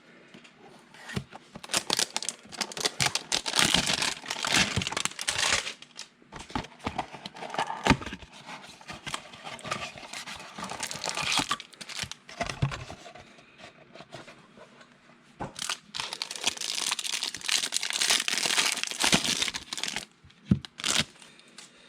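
Plastic wrapping of a trading-card hanger box being torn open and crinkled, in two longer spells of crackling with scattered clicks and rustles of handling between them.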